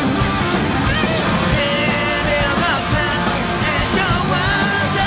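Hard rock band playing live, with electric guitar, bass and drums, and a lead singer's vocals coming in about a second in.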